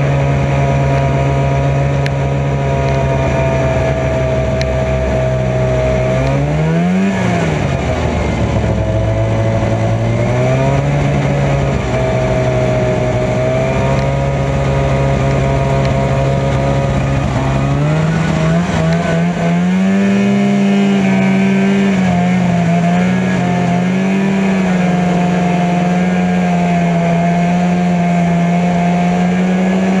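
1990 Arctic Cat Jag snowmobile's two-stroke engine running under way. Its pitch swells and falls back about seven seconds in, then climbs around eighteen seconds in and stays higher.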